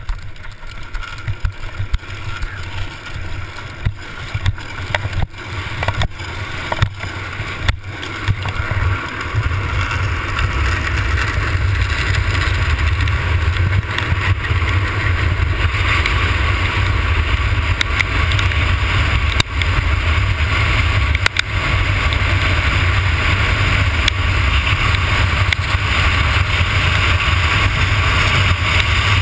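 Street luge wheels rolling fast on an asphalt road, with wind rushing over the microphone; the roar builds over the first ten seconds or so as the luge gathers speed, then holds steady. A few sharp knocks in the first eight seconds.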